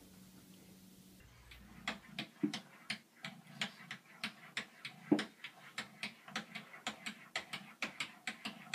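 Sharp, evenly spaced clicking taps, about three a second, starting about two seconds in.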